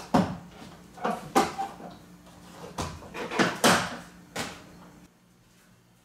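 A run of sharp clacks and knocks, about seven in five seconds, from a window blind being handled at its top rail.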